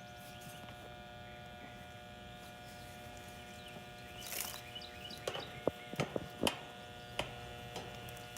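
Steady electrical hum, with a few sharp clicks and knocks starting about four seconds in.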